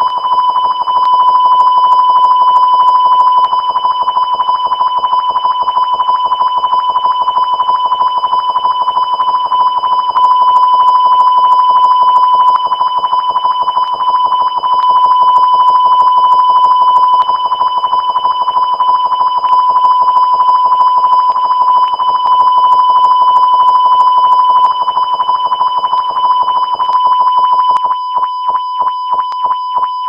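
A loud, steady electronic tone held on one pitch, with a fast flutter running through it. In the last few seconds it breaks into quick pulses, about three a second.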